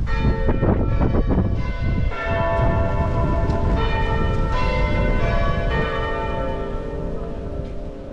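Church bells ringing, several bells struck in quick succession whose tones ring on and slowly fade near the end. Wind rumbles on the microphone underneath.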